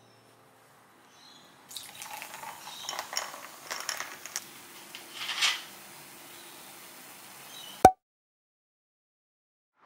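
A fizzy cola-like drink poured over ice in a glass: irregular crackling of ice and fizzing that peaks about five and a half seconds in, then settles to a faint steady fizz. A single sharp click near the end, after which the sound cuts out.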